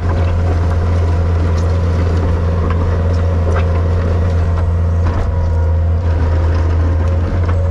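Skid steer loader's engine running hard and steady, heard from the operator's seat as the bucket flattens a rut in the gravel base, with a few light knocks from the machine.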